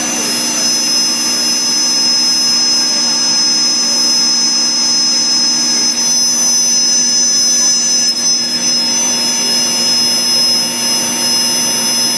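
Komo VR510 CNC router running, its spindle giving a steady high whine as the tool cuts King StarBoard polymer sheet. The mix of tones shifts about halfway through.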